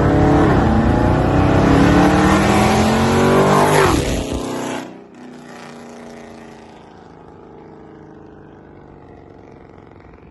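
Dodge Charger R/T's Hemi V8 through long-tube headers and catless mid pipes, very loud, revving up and down several times with a sharp final rev about four seconds in. It then drops to a much quieter, steady running sound.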